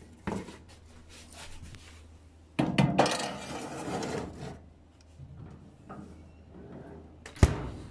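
A metal baking tray of aluminium cupcake cups is handled and slid into a small oven. It gives scattered light clicks, a rough scraping rattle for about two seconds, then a few small clinks and one sharp knock near the end.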